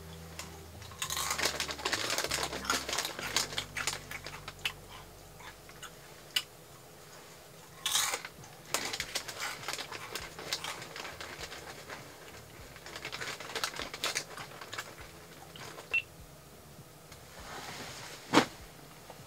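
Crinkling of a corn chip bag and crunching of chips being chewed, in stretches of crackly noise, with a single sharp click near the end.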